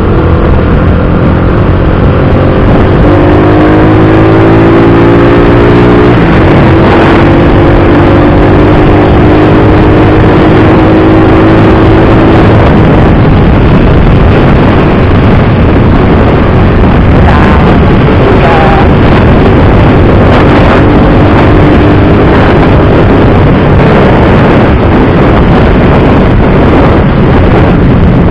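Rusi Bantul motorcycle engine under way, its pitch rising over the first six seconds as it speeds up, then holding steady. Loud wind buffeting on the action camera's bare microphone runs under it.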